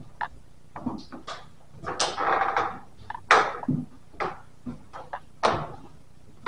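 A run of irregular knocks and clicks with rustling, at uneven intervals: a longer rustle about two seconds in and two sharper, louder knocks later on.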